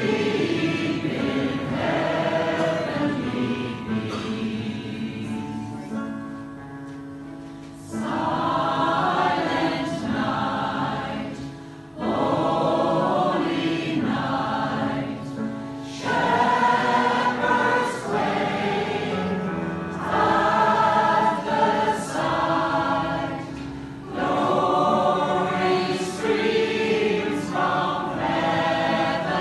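Mixed choir of women's and men's voices singing, in phrases, with a softer stretch a few seconds in before the singing swells again about eight seconds in.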